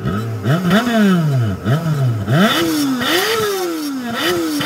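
Rebuilt Toyota Corolla 5A 16-valve EFI petrol engine revved in repeated throttle blips: each one rises quickly in pitch and sinks back more slowly, about seven in a row, the later ones higher.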